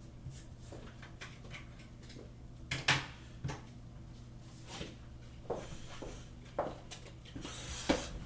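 Scattered light knocks and clicks of small objects being handled, the loudest about three seconds in, over a steady low hum.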